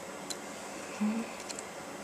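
Faint ticks and clicks of soldering work on wired LEDs, a few scattered light clicks over steady room noise, with a brief low hum about a second in.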